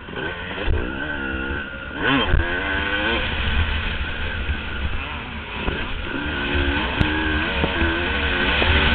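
Motocross bike engine heard close up from the bike, revving up and falling back several times as the rider accelerates, shifts and rolls off through the track's turns and jumps.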